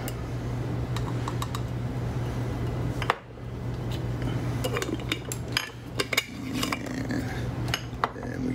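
A small spoon clinking and scraping against a jar and a glass cup as turmeric powder is scooped out and tipped in. There is one sharp clink about three seconds in and a run of light taps later, over a steady low hum.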